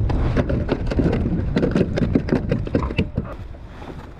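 A rapid, irregular run of knocks and slaps against the kayak, with handling noise, as the landed fish and gear are dealt with on board. It fades out after about three seconds.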